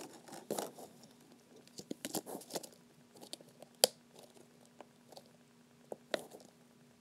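Hands handling a small clear plastic slime container: scattered light clicks and crackles of plastic, with one sharp click a little before the halfway point, over a faint steady hum.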